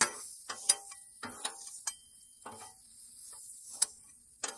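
Two metal spatulas scraping and clacking on the steel top of a Blackstone flat-top griddle as sliced onions are stirred in melting butter, in irregular strokes. A faint steady sizzle runs underneath.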